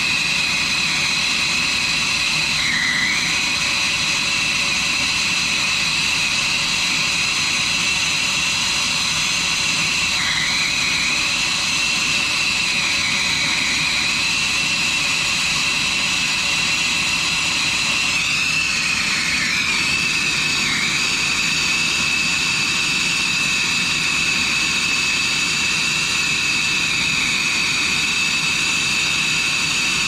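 Brazing torch flame running with a steady rushing roar and a high whistle that briefly dips in pitch a few times, as it heats a copper refrigerant line to braze in an access fitting.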